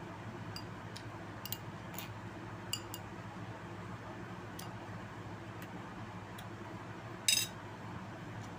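Cutlery clinking against a plate, one louder clink about seven seconds in after a few light ticks, over a steady low background hum.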